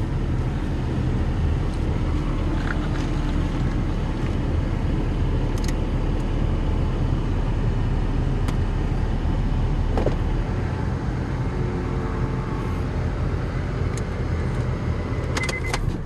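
Honda car engine idling steadily, heard from inside the cabin, running now that its blown 120-amp main battery fuse has been replaced. A few faint clicks sound over it.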